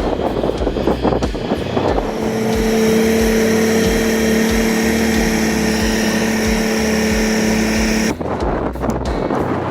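V12 diesel engine of the ACO 600 tractor running hard with a steady drone, over rattle and wind-like noise. The drone settles in about two seconds in and drops away about eight seconds in.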